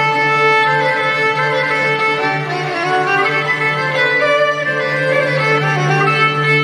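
Andalusian nouba ensemble playing: violins bowed upright on the knee in the traditional way, together with ouds, in a continuous melodic passage over a steady low held note.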